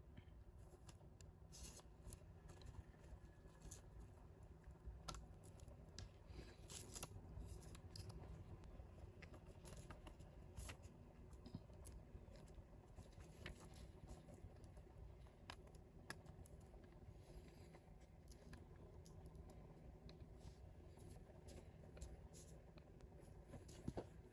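Faint, scattered clicks and scratches of small plastic and metal RC motorcycle parts and tools being handled during assembly.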